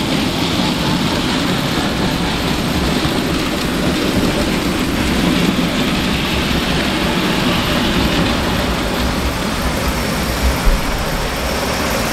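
A model locomotive running on its track: the steady, unbroken noise of its electric motor and wheels on the rails.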